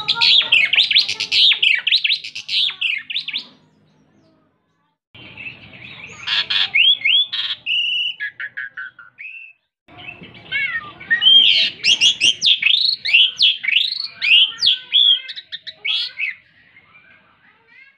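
Javan pied starling (jalak suren) singing hard: three long runs of rapid, varied chirps, whistles and harsh notes, with short pauses between them.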